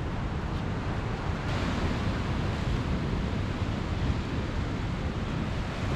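Rough, swirling seawater washing and surging, with wind rumbling on the microphone; the hiss of the water grows louder about one and a half seconds in.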